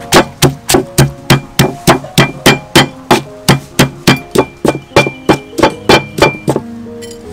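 Stone pestle pounding fresh red chilies in a stone mortar: sharp, even knocks about three a second that stop near the end. Background music runs underneath.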